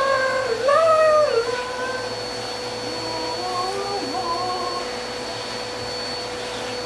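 Vacuum cleaner running steadily through a hose attachment, its motor giving a constant whine, as it sucks crumbs off a fabric couch seat. Over it comes a wavering, howl-like voice that glides up and down, loudest about a second in and again a few seconds later.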